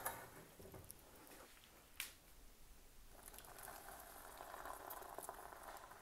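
Boiling water poured from a saucepan into a zip-top plastic bag, a faint steady trickle starting about three seconds in, after a single light knock about two seconds in.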